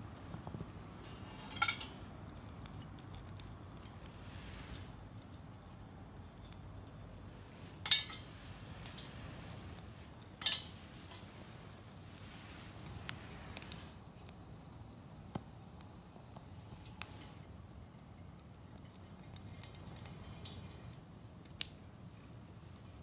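Open wood fire crackling: a low steady hiss with scattered sharp pops, the loudest about eight seconds in.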